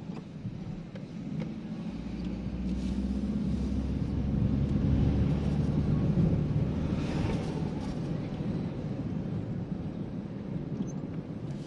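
Car engine and road noise heard from inside the cabin of a moving car, a low hum that grows louder a couple of seconds in, peaks past the middle, then eases off.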